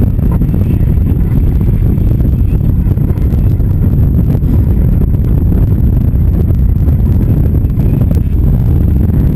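Game-fishing boat's engines running with a steady low rumble, mixed with wind and water noise on the microphone.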